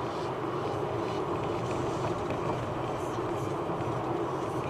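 Steady road noise of a car driving at speed, heard from inside the cabin: an even drone of tyres and engine with no distinct events.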